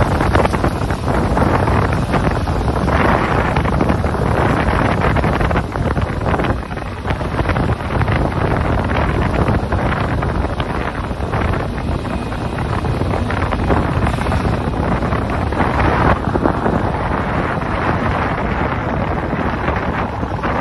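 Heavy wind buffeting a phone microphone over the sea, with water rushing and splashing alongside a fishing boat's hull. The noise swells louder several times.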